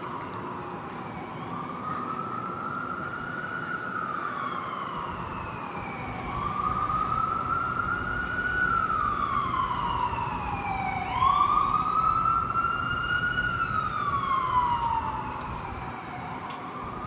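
Emergency vehicle siren in a slow wail: each rise takes about a second or two and each fall is slower, repeating every four to five seconds. It grows louder partway through, is loudest for a few seconds, then drops back.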